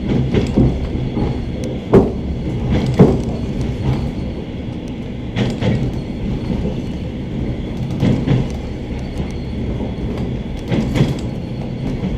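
Suburban train carriage running between stations: a steady rumble with the wheels knocking over rail joints at uneven intervals, the sharpest knocks about two and three seconds in.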